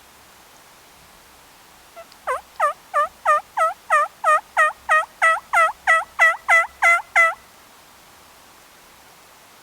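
Turkey yelping: a run of about fifteen even yelps, about three a second, growing louder over the first few notes and then holding steady for about five seconds before stopping.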